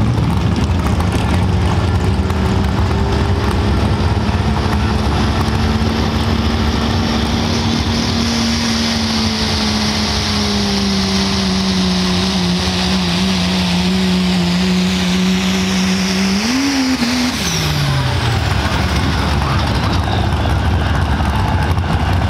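Turbocharged Cummins diesel engine of a second-generation Dodge Ram pulling truck running flat out under load as it drags a weight-transfer sled, its engine note holding steady and dipping slightly about halfway. About three-quarters through it briefly revs higher, then falls away as the throttle is lifted at the end of the pull.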